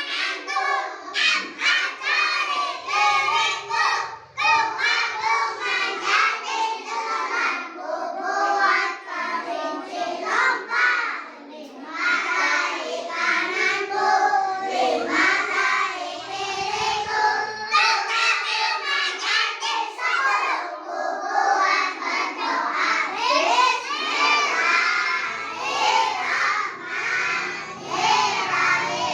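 A group of young children singing together loudly and unevenly, many voices overlapping with some shouting mixed in.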